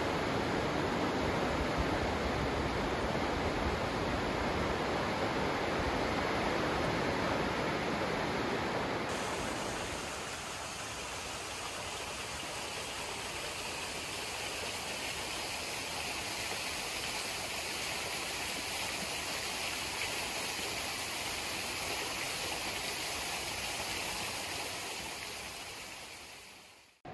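Rain-swollen, muddy river rushing through a rocky gorge: a loud, steady rush of water. About nine seconds in it cuts to a quieter, thinner steady hiss that fades out near the end.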